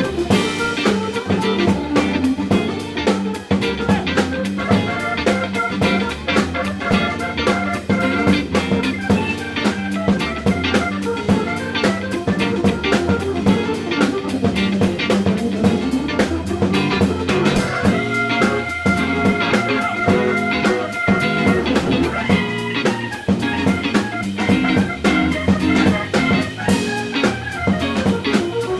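Background music: guitar and drum kit playing a steady beat.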